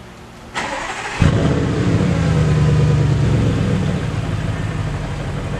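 Audi S7's 4.0-litre twin-turbo V8 starting on its stock exhaust. A short burst of cranking is followed by the engine catching with a loud flare of revs at about a second in, then easing down toward a steady high idle.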